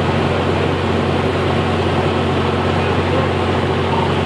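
A large engine running steadily: a constant low drone with a steady hum above it.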